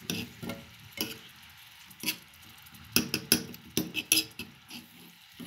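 A utensil stirring shredded carrot hard in a frying pan, with irregular scrapes and knocks against the pan. The sharpest knocks come in a cluster about three to four seconds in.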